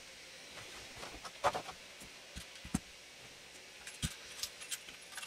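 Scattered light clicks and a few low knocks of things being handled, growing more frequent near the end.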